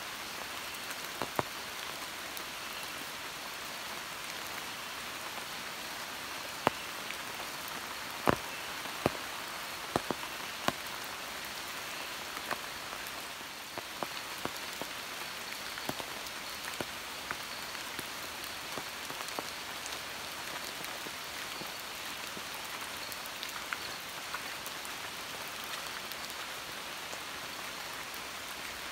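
Steady monsoon rain falling through tropical forest. Loud single drops strike close by now and then, most of them in the first eleven seconds.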